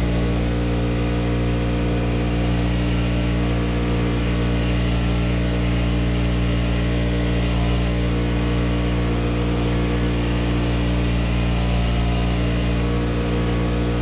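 Power wire wheel running steadily, its motor humming under the scratchy hiss of wire bristles scrubbing rust off a steel bolt, the scrubbing rising and falling as the bolt is pressed to the wheel.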